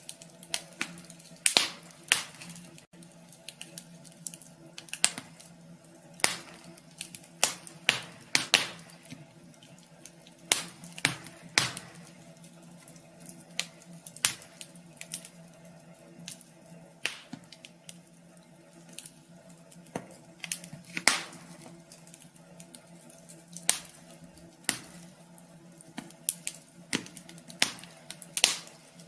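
Wood fire crackling in a wood stove: irregular sharp pops and snaps, some much louder than others, over a faint steady hum.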